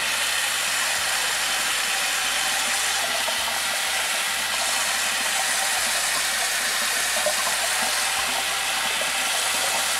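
Cold tap water running steadily onto shrimp in a perforated stainless steel steamer basket in a stainless steel sink.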